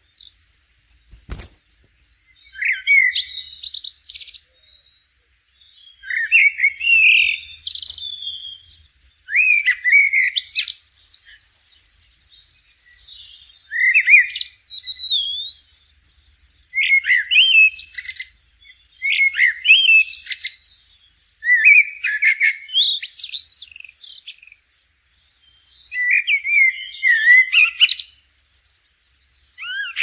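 Common blackbird singing: about ten short warbled phrases of rapidly gliding notes, each followed by a brief pause, with one sharp click about a second in.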